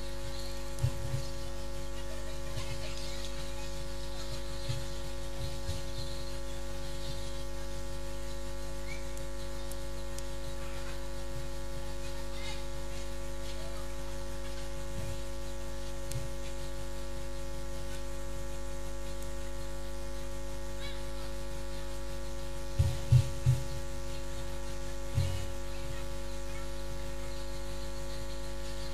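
Steady electrical hum made of several fixed tones, with a few short dull low thumps, three in quick succession near the end.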